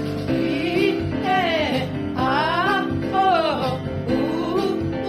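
A singer performing melismatic runs, quick sweeping up-and-down phrases repeated about once a second, over instrumental backing music.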